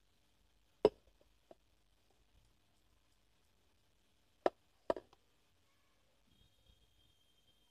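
A few sharp knocks on a hard board: one about a second in, and two close together just before five seconds in, with a faint high steady tone near the end.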